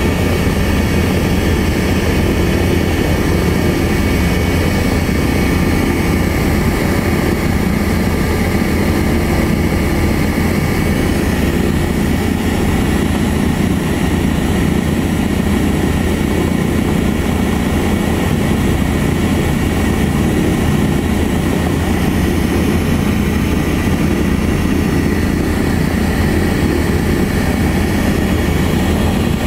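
The radial piston engines and propellers of a 1949 Lisunov Li-2 (Shvetsov ASh-62IR nine-cylinder radials) running steadily, heard from on board.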